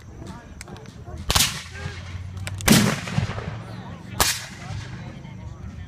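Three loud black-powder rifle-musket shots fired with blank charges, about a second and a half apart, each leaving a ringing echo.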